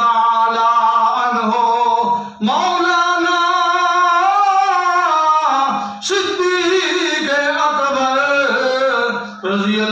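A man's amplified voice singing long, drawn-out melodic phrases of devotional verse, with held notes and ornamented glides. He breaks briefly for breath about two and a half seconds in, again around six seconds, and just before the end.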